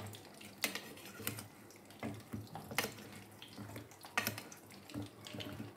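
Vegetable kebabs shallow-frying in hot oil in a frying pan: a steady faint sizzle broken by irregular pops and crackles from the spattering oil.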